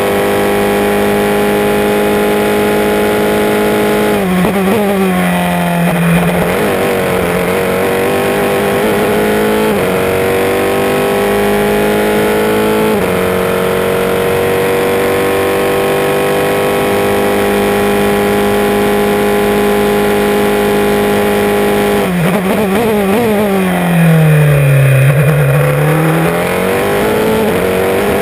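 Single-seater race car engine at high revs on a flying lap, its pitch climbing and stepping as the gears change. Twice the pitch sweeps down and back up, around four seconds in and again near the end, as the car slows for a corner and accelerates out.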